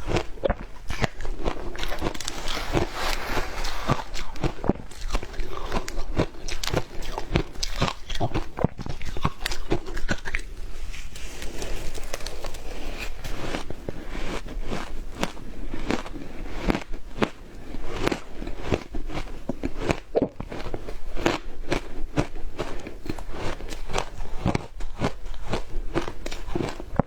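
Frozen matcha ice being bitten and chewed: dense, continuous crunching and cracking with many sharp crackles close together.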